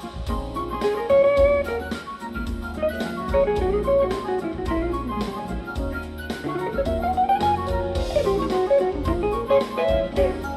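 Live jazz-funk band playing an instrumental passage: a lead guitar line over drum kit, with runs of quick notes and a few sliding notes.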